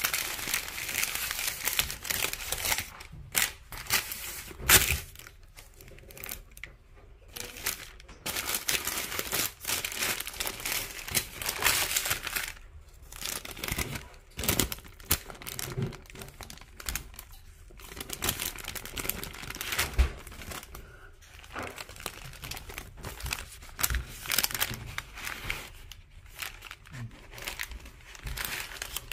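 White paper sandwich wrapping being handled and unfolded, crinkling and rustling in bursts with short pauses and a few sharp crackles.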